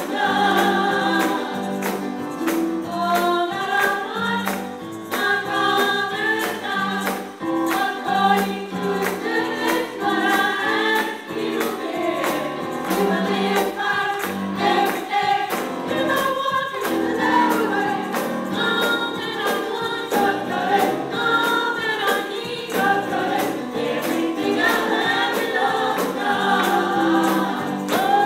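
Mixed church choir of men and women singing a gospel song in parts, over a steady percussion beat.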